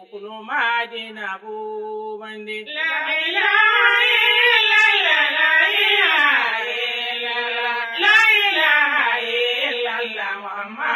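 Islamic religious chant sung by a voice in a slow melody that bends up and down through long held notes, with a short break about eight seconds in.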